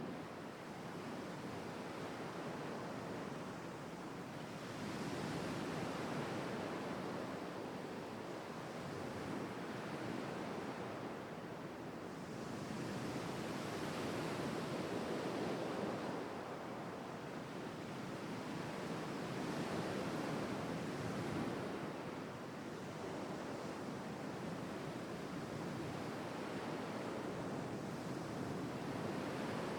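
Ocean surf: waves breaking and washing ashore in a steady rush, swelling louder every several seconds as each set comes in.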